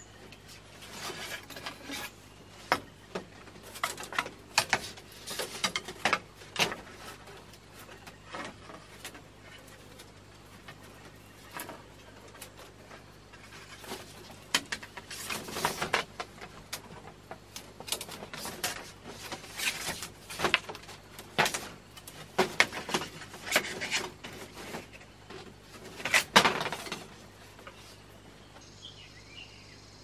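Thin bamboo strips clicking, rustling and scraping against each other as they are bent and woven by hand into a round hen coop. The sound comes in irregular clusters, with a louder clatter near the end.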